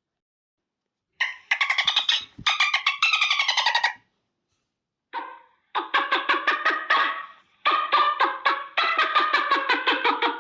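Monster creature sound effect: a rapid, rattling chatter-like call in several loud bursts with short breaks between them, starting about a second in.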